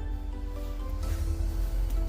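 Background music: held notes over a steady low bass.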